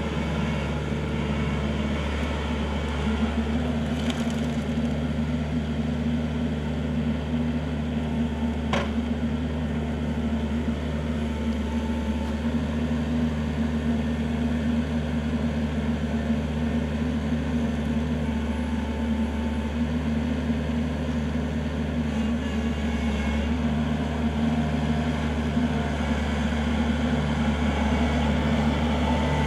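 Kubota L4400 tractor's diesel engine running steadily under backhoe work, with a single sharp crack about nine seconds in.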